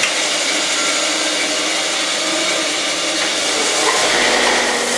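Stationary belt sander running steadily, sanding a small block of teak down toward thickness; a low hum joins about four seconds in.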